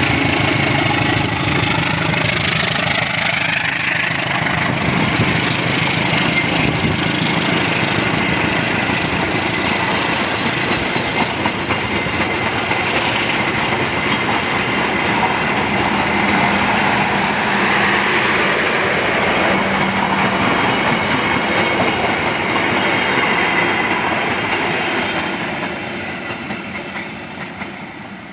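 Train rolling past close by, its cars running steadily on the rails for most of the time, then the noise dying away over the last few seconds as it moves off.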